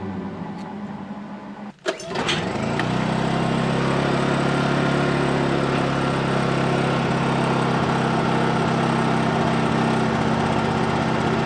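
Honda EU2000i four-stroke inverter generator starting about two seconds in, after a click, then running steadily.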